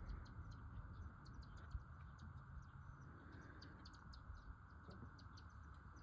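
Faint, scattered high bird chirps over a low, steady background rumble.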